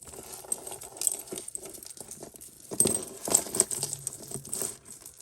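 Tangled bead necklaces and metal chains clicking and rattling against each other as they are pulled and worked apart by hand, with a dense flurry of clicks about three seconds in.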